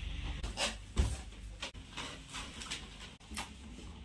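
Inflated rubber balloons being handled and pressed onto a wall: a run of short rubbing, squeaking sounds, with a dull thump about a second in.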